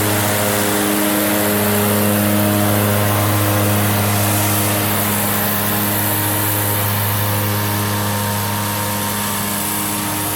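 Zero-turn riding lawn mower's engine running at a steady speed, a low even hum with little change in pitch.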